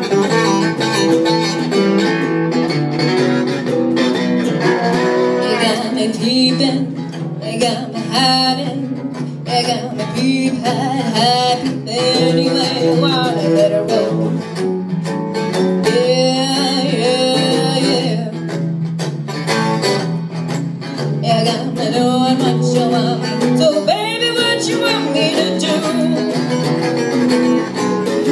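A small live band playing: acoustic guitar and electric bass guitar, with a woman's lead vocal coming in about six seconds in and singing in phrases over the steady backing.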